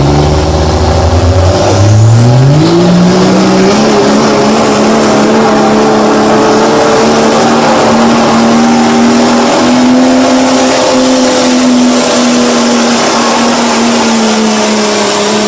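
Dodge Ram pickup's turbo-diesel engine revving up over the first few seconds, then held at high, steady revs under full load while it drags the pulling sled, dropping off at the very end. A high whistle climbs with the revs early on.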